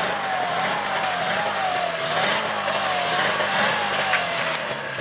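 Buran snowmobile engine running as it pulls away, its pitch wavering up and down and slowly sinking while it hauls a loaded sled through deep snow.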